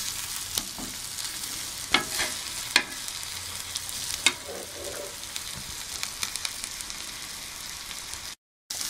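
Masala-coated fish pieces sizzling steadily in shallow oil on a dosa tawa, with a few sharp clicks of a steel spatula against the griddle as the pieces are turned. The sound cuts out for a moment near the end.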